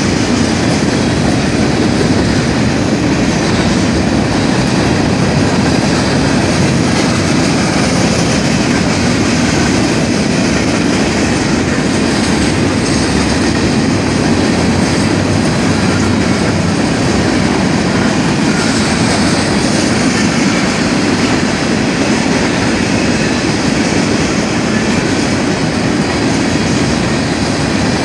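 Freight train of boxcars, hoppers and tank cars rolling steadily past a grade crossing: a continuous, even noise of steel wheels running on the rails.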